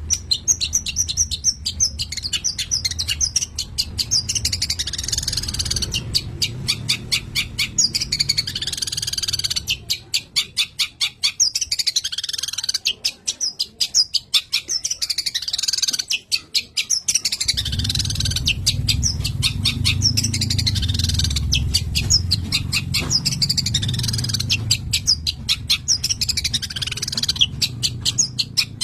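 A long-tailed shrike sings a fast, continuous song. It is made of rapid runs of sharp ticks mixed with short whistled and falling notes, with a low steady rumble behind it for most of the time.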